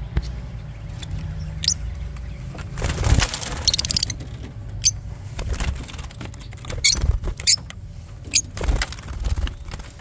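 Lovebirds giving short, sharp chirps several times and flapping their wings as one flies off from a cloth held out to catch it, over the low rustle and rumble of handling.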